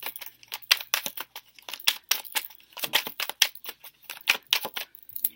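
A tarot card deck being shuffled by hand: a quick, irregular run of short papery card clicks and slaps.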